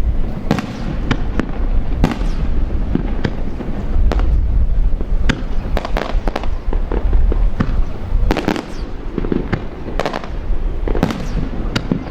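Fireworks display: aerial shells bursting one after another in quick succession, sharp reports with crackling tails over a steady low rumble.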